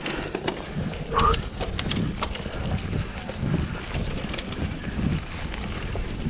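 Giant Trance full-suspension mountain bike rolling down a dirt forest trail: tyres rumbling over the ground, wind on the microphone, and the bike clicking and rattling over bumps. A brief pitched sound about a second in.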